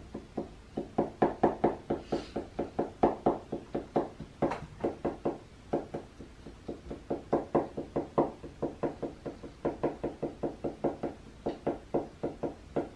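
Marker tip tapping dots onto paper over a wooden tabletop: quick, irregular taps, several a second, with short pauses between runs.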